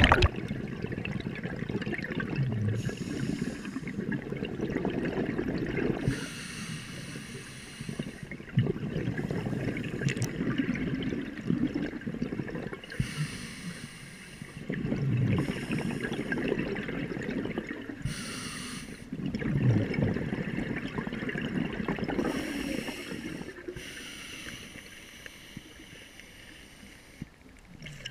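Scuba diver breathing through a regulator underwater: a short hissing in-breath, then a long bubbling out-breath, repeating about every five to seven seconds and growing fainter near the end.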